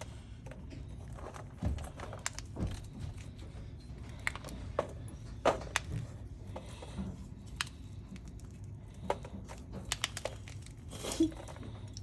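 Hard, dehydrated gym chalk being crumbled, giving irregular sharp cracks and snaps.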